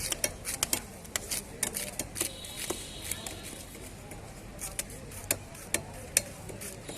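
Knife cutting and scraping a large bhetki (barramundi): a run of sharp, irregular clicks and scrapes, several a second, thinning out in the middle and picking up again towards the end.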